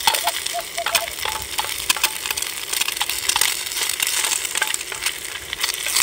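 Egg frying in oil in an aluminium mess tin over a gas canister stove, a steady crackling sizzle with many sharp clicks and scrapes from a utensil working at the egg, which is sticking to the pan.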